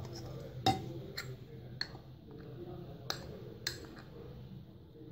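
Wire whisk and a small glass bowl clinking against the rim of a glass mixing bowl while cake batter is whisked and flour is added: a handful of sharp separate clinks, the loudest just under a second in.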